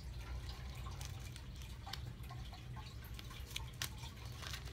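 Fingernails picking and scratching at the plastic shrink-wrap on a Blu-ray case, making faint scattered ticks and crinkles over a low steady hum.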